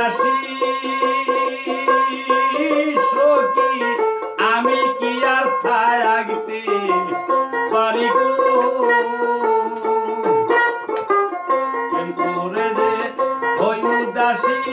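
Man singing a Bengali folk song, accompanied by a dotara plucked in a steady run of notes.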